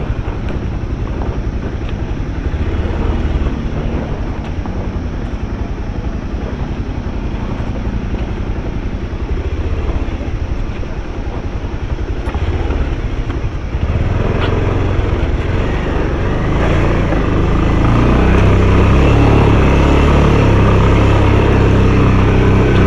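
Motorcycle engine running as the bike is ridden over a rough, rocky dirt track, a steady low rumble that gets louder about fourteen seconds in and again a few seconds later.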